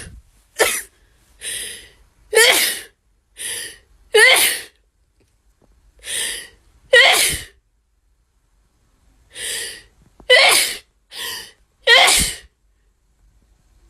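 A woman sneezing over and over in a rapid fit, about eleven sharp sneezes in two runs with a short break of about two seconds in between.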